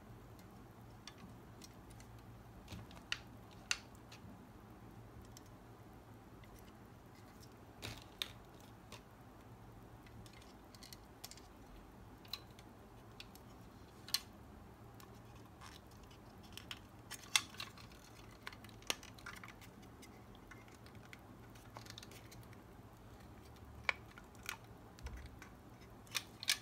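Parts of a 1:24 scale Maisto Ferrari Enzo die-cast model being handled and fitted together by hand: scattered sharp plastic clicks and taps, a few of them louder.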